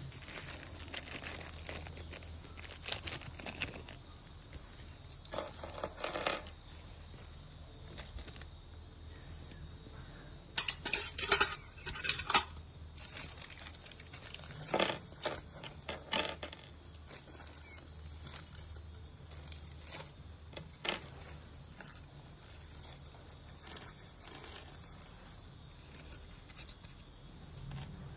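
Small metal broadheads and arrows being handled and screwed together by hand: scattered light clicks, clinks and rustles, busiest in the middle.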